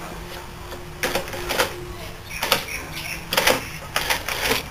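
Metal lathe parts clacking as the turret's trip and locking mechanism is worked by hand: a series of sharp metallic clicks and clunks, about one every half second to a second.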